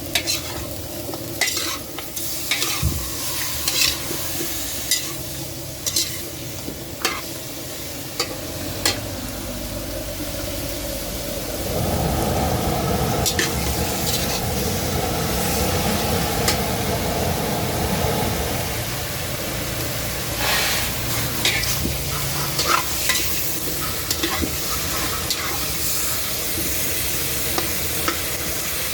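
Food sizzling in a frying pan while a utensil stirs and scrapes against the pan, in a run of sharp scrapes and clicks. The sizzle grows louder for several seconds midway, and the scraping picks up again after it.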